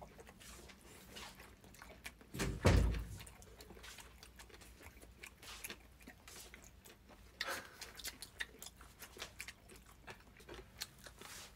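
Close-up chewing and biting on braised pig's trotters (jokbal), a run of small wet clicks and crackles. There is a louder low bump about two and a half seconds in.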